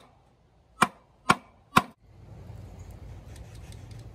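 Claw hammer striking a wood block three times, about half a second apart, driving the steel shaft out of a Hobie Mirage GT pedal-drive spine, the block keeping the hammer off the shaft. Then a low steady background rumble.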